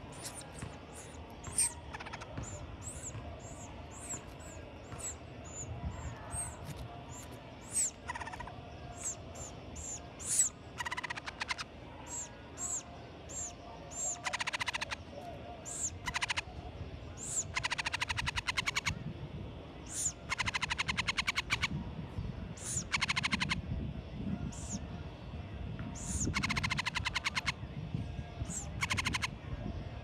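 Hoffmann's woodpecker nestlings calling from the nest hole: a run of short, high chirps, joined from about ten seconds in by several buzzy, rapidly pulsed begging bursts of about a second each.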